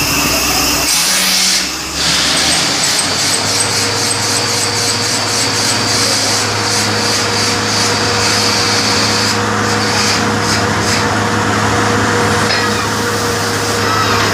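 Borewell drilling rig running loudly and steadily. After a brief drop about two seconds in, it settles into a constant hum.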